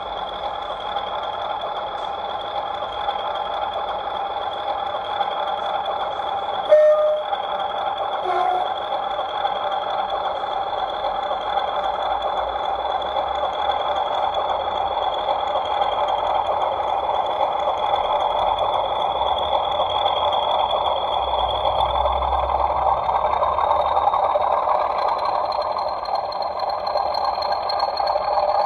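Recorded British Rail Class 40 diesel sound played by a model locomotive's ESU sound decoder through its small speaker: the English Electric engine running steadily with its high turbocharger whistle, which climbs in pitch near the end. One sharp knock about seven seconds in.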